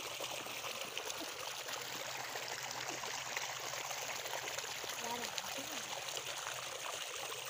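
Shallow water in a flooded paddy field trickling and splashing steadily, with small splashes of bare feet wading through it.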